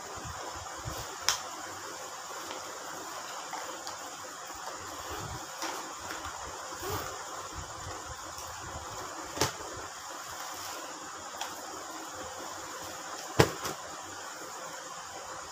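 Steady low hiss with a few scattered light taps and knocks from things being handled on a bed, the loudest knock near the end.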